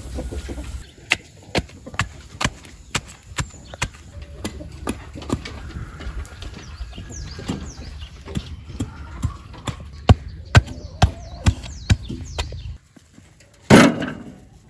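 A long-handled tool striking again and again at the foot of a concrete fence post, tamping the earth around it, about two sharp knocks a second. Near the end, after a short break, one loud knock as a concrete block is set down in a metal wheelbarrow.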